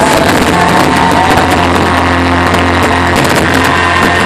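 Loud rock music with a sustained bass note, with many sharp cracks from fireworks mixed in.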